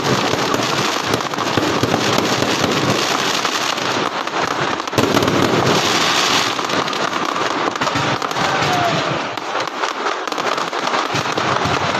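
A close fireworks display going off continuously: rapid crackling and popping reports overlapping without a break, a little louder around the middle.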